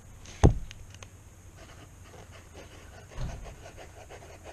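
Fine steel-free-scratch of a Wality 71JT fountain pen's fine nib writing on notebook paper, a faint scratching. A sharp knock about half a second in is the loudest sound, with a softer bump a little after three seconds.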